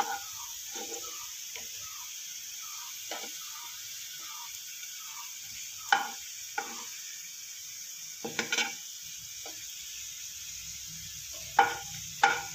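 Sliced onions sizzling in a little oil in a nonstick frying pan while they fry to golden brown. A wooden spatula stirs them, scraping and knocking on the pan every second or two, with a quick run of knocks near the end.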